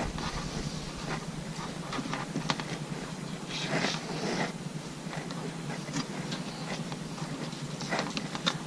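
Jacket fabric rubbing on a chest-mounted action camera's microphone: uneven swishing and rustling, with brief scratchy bursts a few times, over a faint steady low hum.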